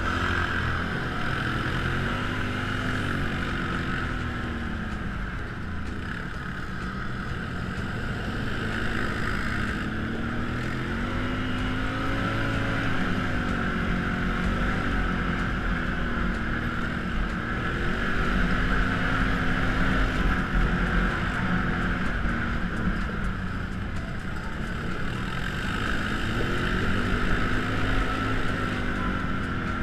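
Can-Am Outlander ATV engine running while riding along a gravel track. Its pitch rises and falls every few seconds as the throttle is opened and eased, over a steady hiss.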